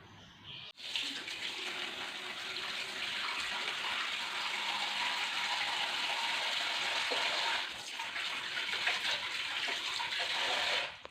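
Tap water running steadily into a sink, starting about a second in, with a brief dip in the flow about two-thirds of the way through.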